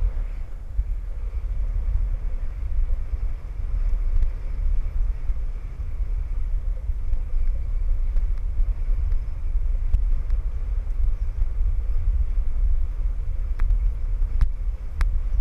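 Dog sled running over a packed snow trail: a steady low rumble from the runners and the sled's vibration, with a few sharp clicks near the end.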